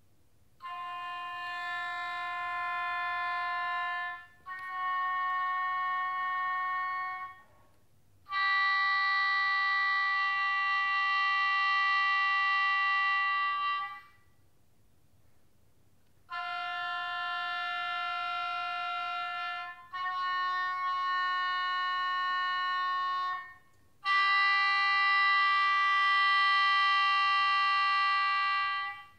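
Oboe playing three long held notes, each a little higher than the one before, then the same three again after a short pause; the third note of each set is the longest and loudest.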